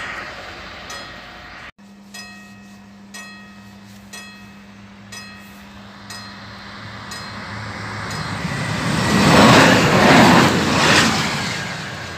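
Fading rumble of a passing train. Then a level-crossing bell strikes about once a second over a faint steady hum. A regional railcar approaches and runs past, its rush of wheel and running noise loudest from about nine to eleven seconds in.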